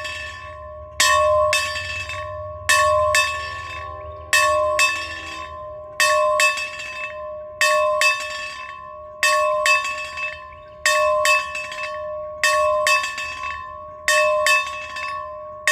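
A single church bell being rung, struck in close pairs about every second and a half. Every strike has the same pitch and rings on, fading between strokes.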